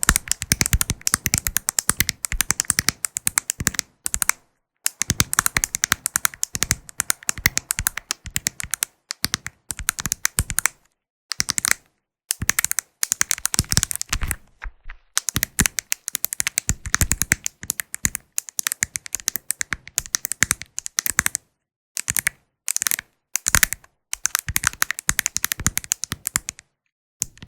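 Mirror ball's small mirror tiles tapped rapidly, a dense patter of sharp clicks in runs broken by brief pauses.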